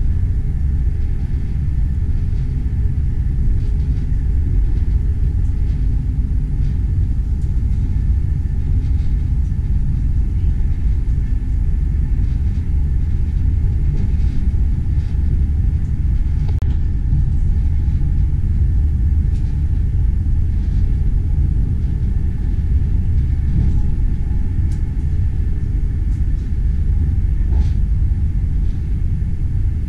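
Steady low rumble of a moving train, with faint light clicks now and then.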